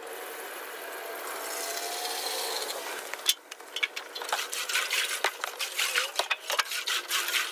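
Water from a garden hose running into a steel fuel tank through its filler neck, a steady rush that grows a little louder and stops about three seconds in. Then the filler is covered and the tank is rocked, the rinse water sloshing back and forth inside in quick, uneven strokes.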